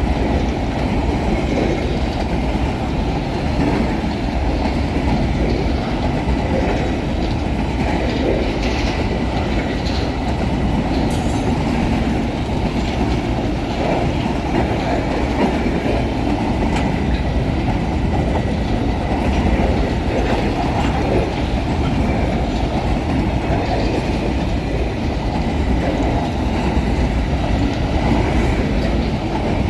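Empty freight train wagons rolling past at speed, a steady loud clatter of steel wheels on the rails.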